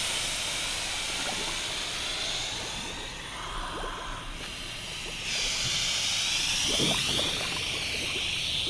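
Scuba breathing through a regulator: two long hisses of air, the second with a wavering, bubbling edge, and a quieter stretch of faint bubbling between them.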